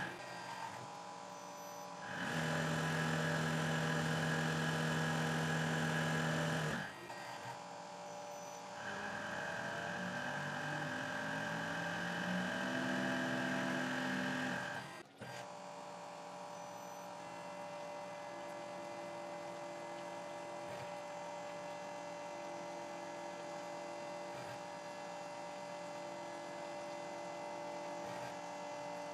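Tormach 8L CNC lathe running as it machines a brass bearing: a steady electric whine and hum. It grows louder for a few seconds about 2 seconds in and again from about 9 to 15 seconds, then settles to a quieter steady hum after a brief break.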